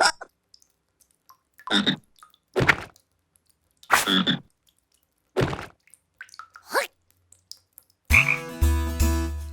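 About five short, croaky cartoon voice calls, each well under a second and roughly a second apart. A music cue with sustained notes and a deep bass starts near the end.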